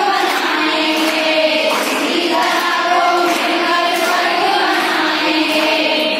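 A group of women singing together in unison, in long held notes.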